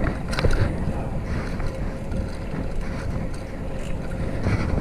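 Wind buffeting the microphone of a camera riding along on a moving fixed-gear bicycle, over a steady road rumble, with a few sharp rattling clicks, the loudest near the start.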